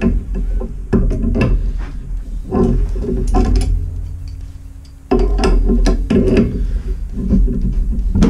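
Metal clinks, knocks and scrapes of tongue-and-groove pliers gripping and turning the brass fittings of a boiler auto-feed valve, over a steady low hum that comes back sharply about halfway through.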